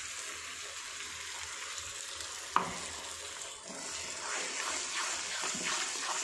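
Onions and ginger-garlic paste sizzling in hot oil in a metal wok, with one sharp clink of the spatula against the pan about two and a half seconds in. The spatula then scrapes the pan in quick repeated stirring strokes.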